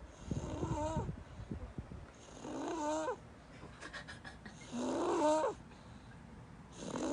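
A toddler of about 16 months snoring in sleep: a pitched, breathy snore on each breath, repeating about every two and a half seconds.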